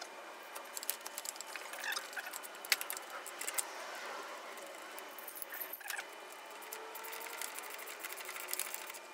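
Ratchet wrench clicking in quick runs as a bolt is tightened on the rear shock absorber mount, with small metallic clinks of tools and hardware.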